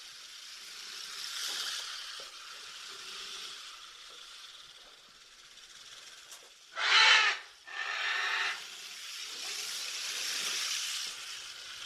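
An animal hissing: two harsh, breathy hisses about a second apart, over a faint steady hiss.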